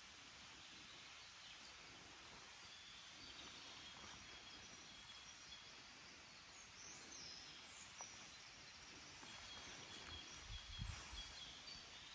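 Quiet woodland ambience: a faint hiss with distant bird calls, short high chirps repeating now and then. A few soft low bumps near the end.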